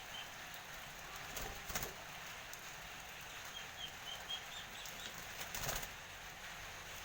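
Perkutut (zebra dove) flapping its wings in short flurries, about a second and a half in and again near the end, with a short run of faint high chirps in between.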